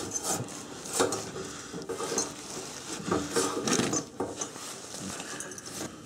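New parking brake cable being pushed and bent around the exhaust and heat shield under a car: irregular scraping and rubbing against the metal, with several sharp knocks.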